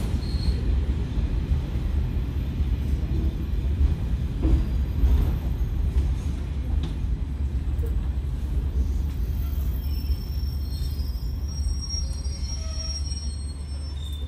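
JR Kyushu KiHa 147 diesel railcar under way, heard from inside the car: steady low rumble of the diesel engine and wheels on the rails. A faint high squeal from the wheels comes in about ten seconds in.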